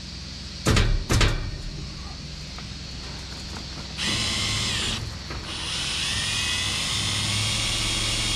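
Power drill trying to drive a self-tapping screw into 14-gauge steel louvers, too thick for a screw made for sheet metal. Two knocks about a second in are followed by a short run of the drill and then a longer steady run.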